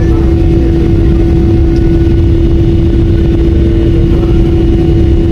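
Boeing 777 jet engines running with a steady, loud low rumble and a steady droning tone through it.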